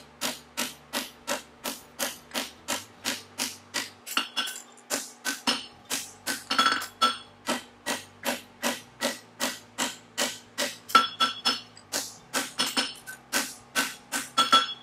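Steady hammer blows, about three a second, driving down on the end of a hot 3/8 x 1 inch aluminum bar stood upright on an anvil. This bumps (upsets) the metal to build mass for the toe of a horseshoe. Some blows ring out with a clear metallic tone.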